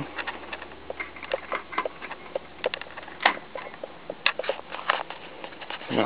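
Irregular light clicks and taps, as from the alarm panel being handled, over a faint low hum that fades about four seconds in.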